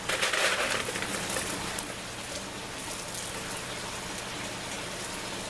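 Water trickling and splashing steadily in an aquaponics grow-tube system. A louder rustling stretch in the first two seconds comes from a strawberry plant in its plastic net pot being handled.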